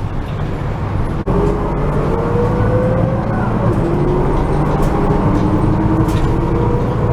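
A bus engine running, heard from inside the bus, with a whine that rises in pitch, drops back and rises again as the bus gathers speed. The sound cuts out for a moment about a second in.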